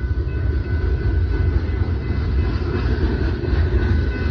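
BNSF freight train of covered hopper cars rolling past, a steady low rumble of wheels on rail with faint, steady high tones above it.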